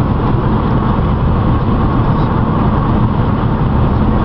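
Steady road and wind noise inside a moving car's cabin, a loud low rumble that does not let up.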